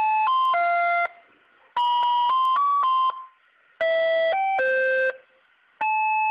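A looping electronic beeping tune: short phrases of a few stepped notes, each phrase about a second long, with brief silences between, the same phrases repeating.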